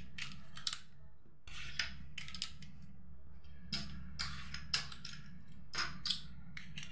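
Small plastic domino blocks clicking and clattering as they are picked from a pile and slid into a red plastic block magazine for a domino-laying toy train. The clicks are light and come irregularly, about nine of them.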